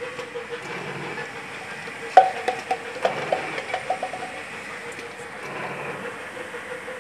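Auger powder filling machine running with a steady motor hum. About two seconds in there is a sharp clack, then a run of lighter clicks for about two seconds from the jar conveyor and filling head.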